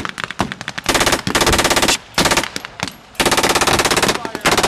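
Blank-fired machine gun shooting two long bursts of very rapid shots, about a second in and again past the three-second mark. Scattered single rifle shots come before the first burst.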